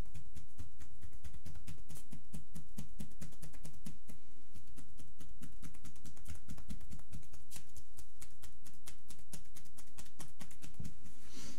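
Hacking massage (tapotement): loose-fingered chopping strokes of both hands on bare shoulders and upper back, a rapid, even run of dull thuds, several a second.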